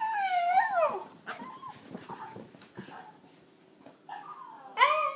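Havanese dog giving high, wavering whine-like vocal calls in excitement. One call of about a second comes at the start and a shorter one near the end, with fainter whimpers between.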